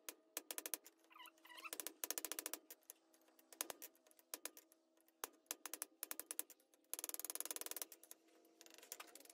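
Hand hammer striking the top die of a guillotine tool fitted with rounding dies on an anvil, fullering a ball end on hot half-inch round steel bar. The blows come as short runs of quick metallic taps, with a dense, fast run near the end.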